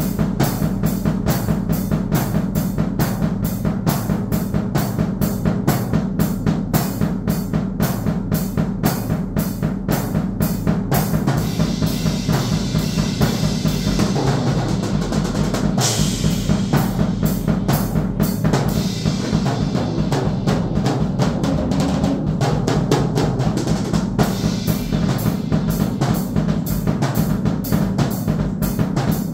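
A drum kit being played in a fast, steady pattern of bass drum and snare strokes. Cymbals wash over the middle part, with a loud crash about halfway through.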